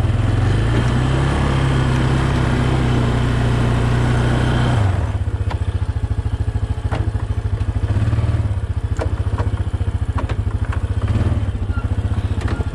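ATV engine running under load while towing a heavy tree limb by chain, its note held higher for the first five seconds, then dropping back to a lower, slower run with a few light clicks.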